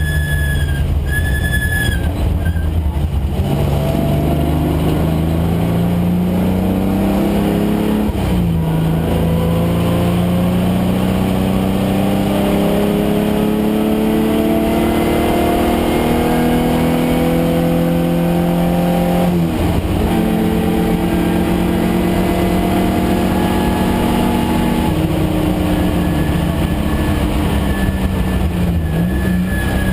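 Datsun 510 wagon's Nissan VG30 3.0-litre V6 running hard under racing load, its pitch climbing slowly as the revs build through the gears. The revs drop sharply at a gear change about eight seconds in and again about twenty seconds in.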